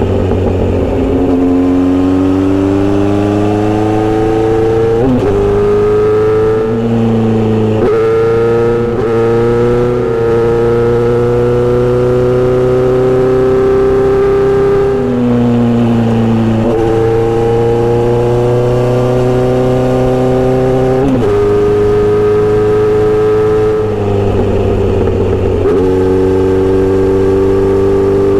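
Kawasaki Z900RS inline-four engine through a Misty Kintaro short steel exhaust, heard while riding. The engine note climbs steadily under throttle and drops back sharply about five times at gear changes or throttle lifts.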